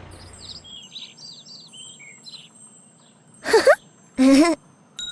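Small birds chirping: a quick run of short, high, falling chirps. A little over three seconds in come two short, loud pitched sounds, the louder of everything here.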